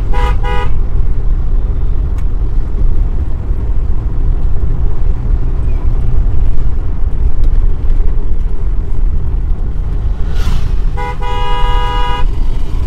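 Steady road and engine rumble heard inside a moving car's cabin. A car horn sounds briefly at the start, and again in a longer blast of a bit over a second about eleven seconds in.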